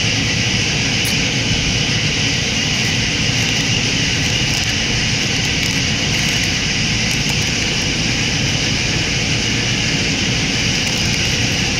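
Steady machine noise: an even hiss over a low hum at one unchanging level.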